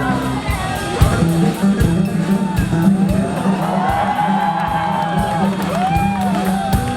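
Loud music with a steady beat, a bass line and a gliding melody line, over crowd noise.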